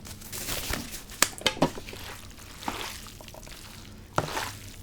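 Sauced cold noodles being mixed in a bowl: wet squishing and slapping, with a few sharp clicks of the utensils against the dish.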